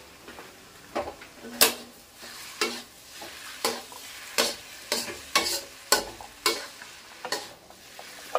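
A spatula knocking and scraping against a wok while noodles are stir-fried: about a dozen irregular clanks, one or two a second, some leaving a short low ring from the pan, over a faint sizzle.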